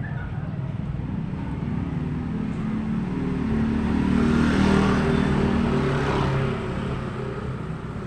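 Small motor scooter engines approaching and passing close by, growing louder to a peak about halfway through, then fading away.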